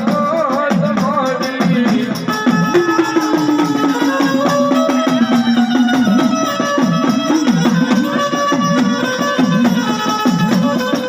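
Gujarati devotional folk music for the Mother Goddess: melody notes held and sliding over a busy drum rhythm with rattles.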